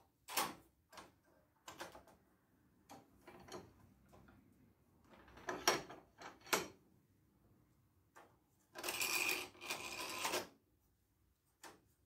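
Homemade bandsaw-blade tooth setter being worked by hand: a series of sharp metallic clicks and clunks from the lever and setting mechanism as the blade is advanced and its teeth are bent. About nine seconds in there is a longer, steadier metallic noise lasting about a second and a half.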